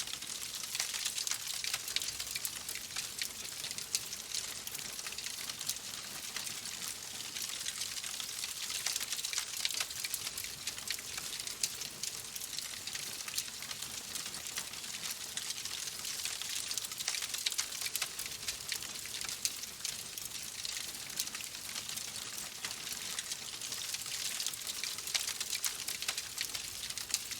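Wood fire crackling in a fireplace: a dense, continuous run of small pops and snaps over a steady hiss.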